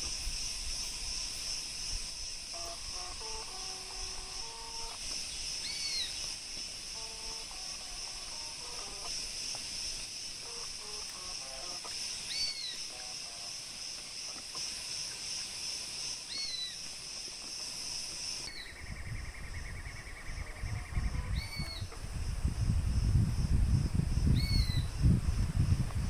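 Forest ambience: a steady, pulsing high drone of insects, with a bird giving a short arched call five times, a few seconds apart. About two-thirds of the way through a buzzy trill joins in, and near the end a loud low rumble comes in.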